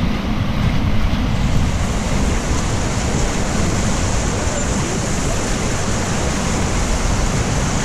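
Whitewater river rapids rushing in a loud, steady hiss, with wind buffeting the microphone. The hiss turns brighter about a second and a half in.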